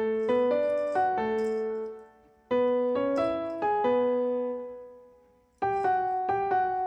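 Background piano music: short phrases of a few struck notes that ring and die away, broken by two brief pauses.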